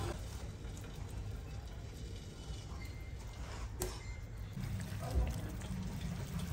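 Hot water pouring from a kettle into a bowl, starting in the last couple of seconds. It comes over quiet background, with a single sharp click about four seconds in.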